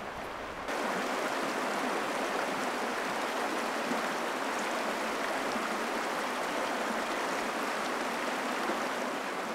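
Shallow mountain stream running over rocks: a steady rush of moving water that comes up louder just under a second in.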